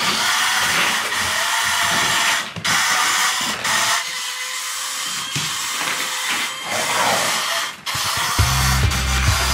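The small electric motor of a remote-control toy car whirring in spurts as it is driven across the floor, over background music whose bass beat comes in near the end.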